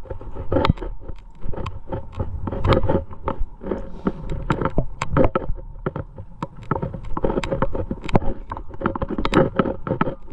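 Close, irregular clicks, clinks and scrapes from a climber's metal gear rack (carabiners and cams on the harness) and from moving against the rock, coming several times a second without a steady rhythm.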